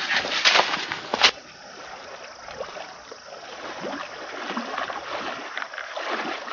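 Footsteps crunching through dry leaf litter, then people wading knee-deep through marsh water, their legs sloshing and splashing with each stride and getting louder as they come nearer.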